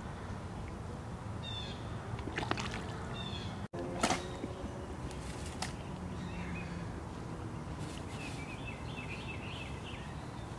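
Shallow creek water sloshing and splashing as a heavy body is handled in it, with short splashy knocks about two and a half and four seconds in. Birds chirp briefly a couple of times and again in a quick run near the end, over a steady low outdoor rumble.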